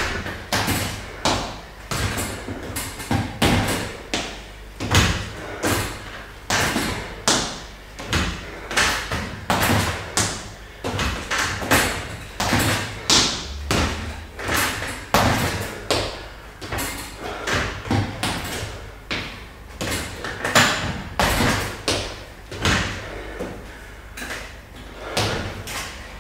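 Repeated heavy thuds on the floor during a leg workout, a little more than one a second, some louder than others.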